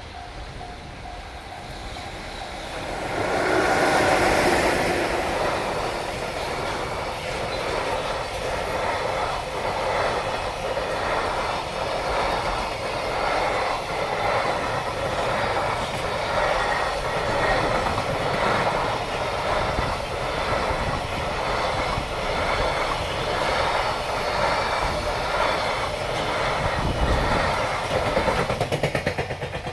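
JR Freight EF66 electric locomotive hauling a long train of container wagons past at speed. There is a loud surge as the locomotive goes by about four seconds in, then a steady clickety-clack of the wagons' wheels over the rail joints, about one and a half beats a second.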